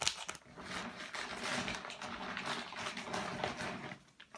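Plastic packaging rustling and crinkling as a packaged squishy is handled, starting with a sharp click.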